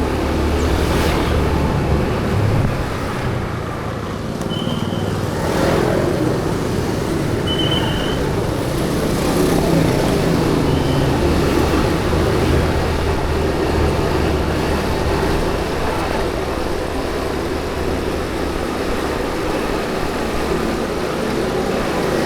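Steady road traffic noise with a low engine hum. Three short high-pitched beeps come about three seconds apart in the first half.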